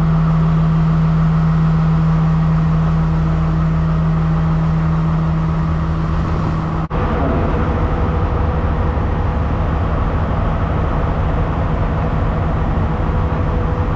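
Steady low drone of the stationary train's idling diesel engine, heard from the front carriage. About halfway through it breaks off abruptly for an instant and resumes rougher, with a faint higher hum over it.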